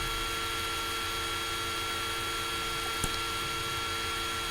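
Laptop cooling fan running steadily, a constant whir with several steady whining tones, picked up loudly by the built-in microphone. A single short click sounds about three seconds in.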